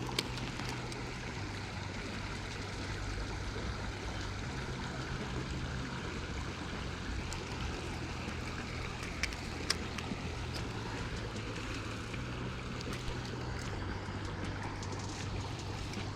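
Creek water flowing and gurgling steadily, with a few brief sharp clicks.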